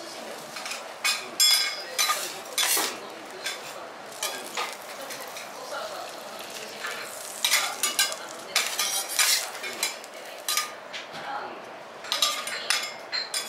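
Metal teppanyaki spatulas scraping and clinking against the steel griddle and a plate, in clusters of sharp strokes over a steady sizzle of oil on the hot griddle.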